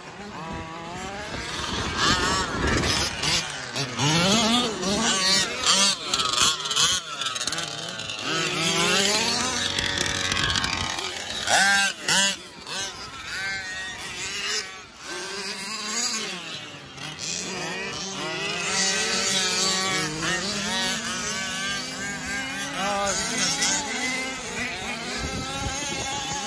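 Small two-stroke gasoline engine of a 1/5-scale RC off-road car revving up and down again and again as it is driven hard.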